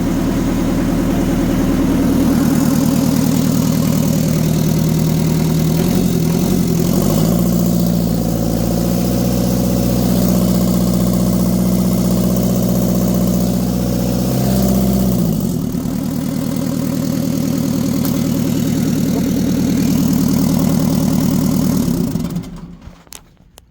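Mitsubishi S4E four-cylinder diesel of an FD25 forklift running on its own after its injection pump timing was corrected. It idles, is revved up about six seconds in and held there, drops back to idle around fifteen seconds, then shuts off near the end.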